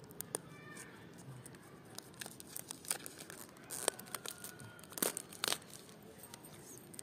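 Clear plastic shrink wrap being torn and peeled off a smartphone box: a run of crackles and sharp rips, loudest about four and five seconds in.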